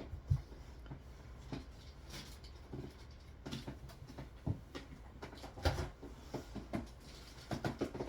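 Scattered soft clicks, taps and rustles of hand handling: hard plastic graded-comic slabs and their packaging being moved about. A few knocks stand out about four and a half and six seconds in.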